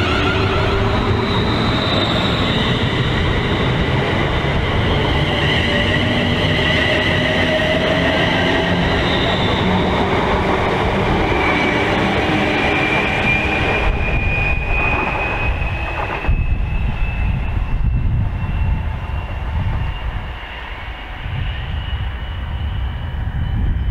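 Class 350 Desiro electric multiple unit pulling away, its traction motors whining in several tones that rise in pitch as it gathers speed, over the rumble of wheels on rail. After about fourteen seconds the whine gives way to the rumble and clatter of electric trains passing.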